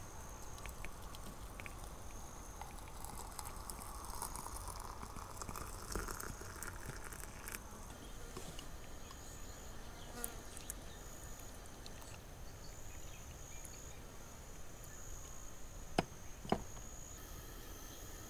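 Hot water poured from a kettle into a cast-iron teapot, the pitch of the pour rising as the pot fills and stopping about seven seconds in; tea is then poured into a mug. Insects chirr steadily throughout, and two sharp clicks about half a second apart come near the end.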